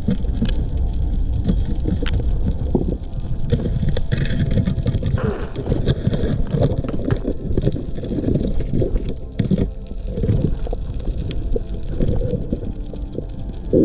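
Muffled underwater sound picked up by a camera in a waterproof housing: a steady rumble with gurgling and scattered knocks.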